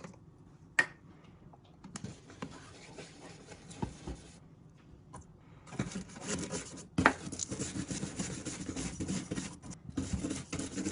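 Scrubbing baked-on grease off a dishwasher's electric heating element, a scratchy rubbing that starts and stops and grows steadier and louder in the second half. Sharp clicks come about a second in and again past the middle.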